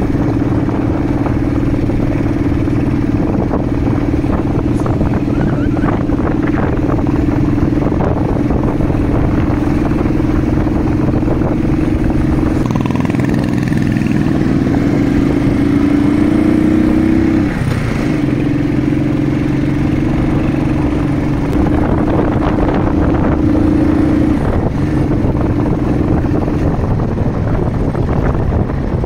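Royal Enfield motorcycle engine running steadily while riding along. About halfway through its note rises for a few seconds, then drops suddenly before settling again.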